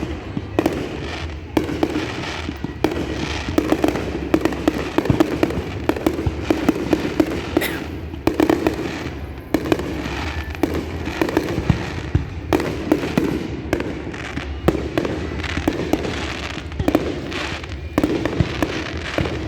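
Fireworks display going off: a dense, unbroken run of sharp bangs and crackling reports, many to the second.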